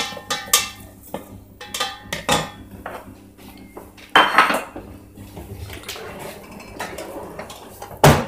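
A spatula clinks and scrapes against a stainless steel saucepan as butter is stirred, in a quick string of sharp knocks over the first couple of seconds, then a louder knock about four seconds in. Near the end, cutlery clinks in an opened kitchen drawer. A steady low hum from the induction hob runs underneath.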